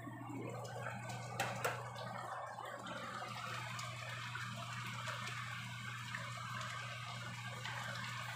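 Food bubbling and sizzling in a pot of sauce on an electric stove, a steady crackle, with a few clicks of a utensil against the pot about a second and a half in as it is stirred. A steady low hum runs underneath.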